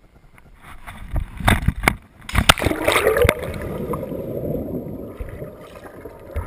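River water splashing and gurgling close to a camera held at the waterline: a few sharp splashes about a second and a half in, then steady sloshing.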